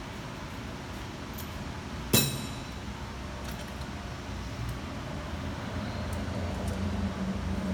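A single sharp metal-on-metal clink with a brief ring, about two seconds in, over a steady low hum.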